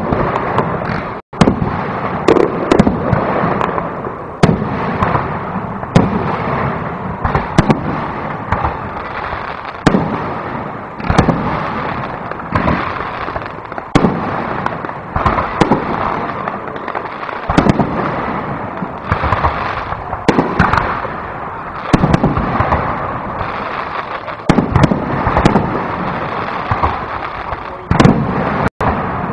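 Aerial fireworks display: shells bursting overhead one after another, a sharp bang every second or so over a continuous crackle. The sound cuts out for an instant twice, once about a second in and once near the end.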